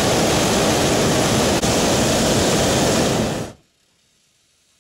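Hot air balloon's propane burner firing: a loud, steady roar that cuts off suddenly about three and a half seconds in.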